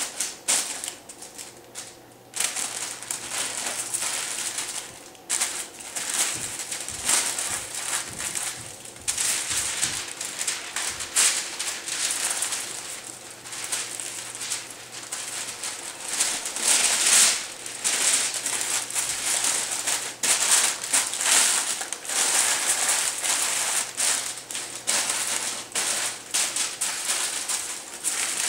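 Plastic cling film and aluminium foil crinkling and crackling as hands wrap and press them around a pork loin, in a dense run of irregular crackles.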